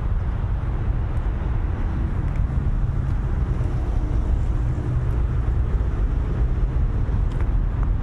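Steady low rumble of outdoor night ambience with no distinct events, heavy in the bass, with a few faint ticks.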